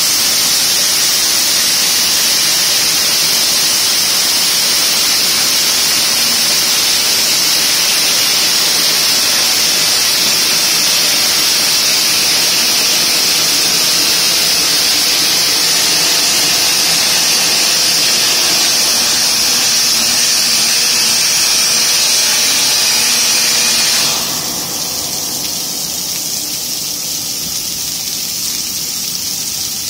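Multiblade stone block cutter running, its large segmented circular saw blade spinning under a spray of cooling water, giving a loud, steady rushing hiss. About three-quarters of the way through, the high hiss cuts off sharply and the sound becomes somewhat quieter but stays steady.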